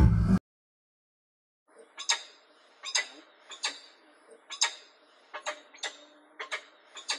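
A leopard's low growl cuts off abruptly just after the start. After a second of quiet a hawk gives short, sharp clicking call notes, about one a second and some in quick pairs.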